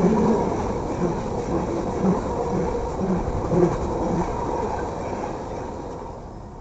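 Coal train's cars rumbling past overhead, with a regular clatter of wheels over the rails about twice a second, tapering off near the end.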